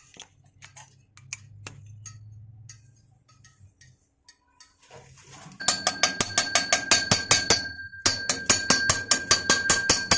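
Metal being struck rapidly and evenly, about five blows a second, on a galvanized steel pipe, which rings with a steady tone under the blows. The hammering starts about halfway through, after a few quiet clicks and a low hum, and pauses briefly near the end.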